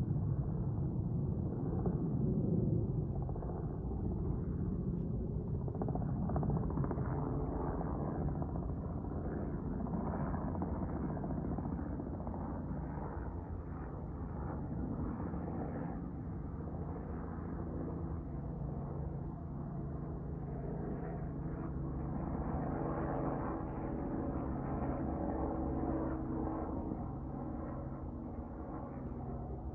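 Jet airliner flying overhead: a broad engine rumble, loudest in the first few seconds, then slowly easing. From about halfway through, a steady droning hum with a held pitch runs underneath.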